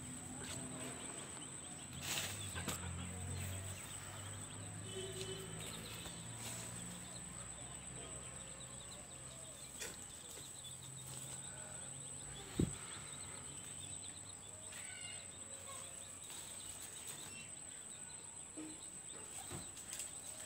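Faint rural outdoor ambience: a steady high-pitched whine with scattered faint bird calls and a low hum in the first several seconds. A single sharp knock comes about twelve seconds in.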